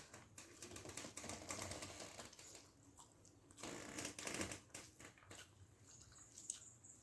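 Close-up eating sounds: wet, rapid clicking and smacking of rice with mackerel fish gravy being mixed by hand and chewed. They come in two spells of quick clicks a couple of seconds each, with a pause of about a second between them.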